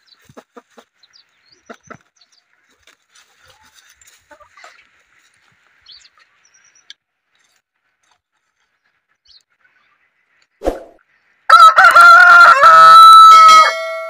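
Desi rooster crowing once, loud and close, near the end, a long held call. Before it, only faint scattered clucks from the flock.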